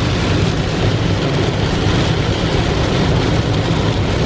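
Torrential rain pelting a moving car, with tyre spray and road rumble from the wet road, steady and loud throughout.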